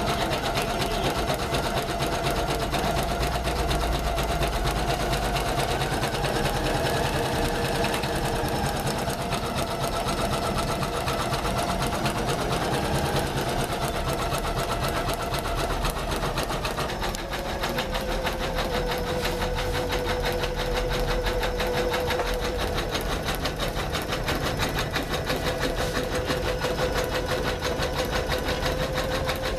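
Janome MC500E computerized embroidery machine stitching continuously, with a fast, even needle rhythm over the hum of its motor. The motor's pitch drops slightly about halfway through.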